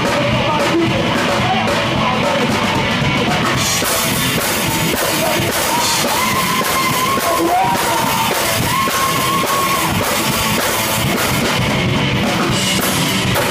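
Live rock band playing loudly: a drum kit with cymbals, a guitar, and a singer holding long sung notes in the middle of the passage.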